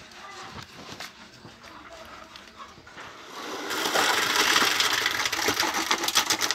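Wet concrete poured from a bucket into a footing form: a loud, gritty rushing that starts about four seconds in and lasts a few seconds.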